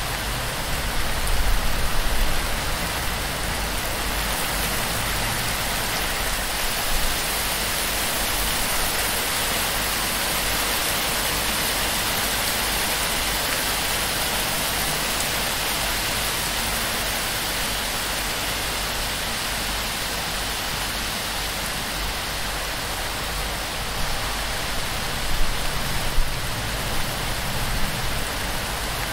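Heavy torrential rain on a palm-thatch roof, water pouring off the fronds: a steady dense hiss of rain, briefly louder a few times near the end.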